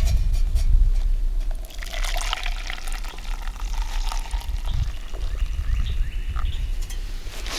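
Water being poured for camp coffee, a liquid trickle that starts about two seconds in and runs for a few seconds, over a low rumble.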